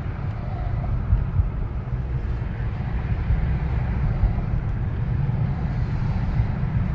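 Car on the move, heard from inside the cabin: a steady low rumble of engine and tyre road noise.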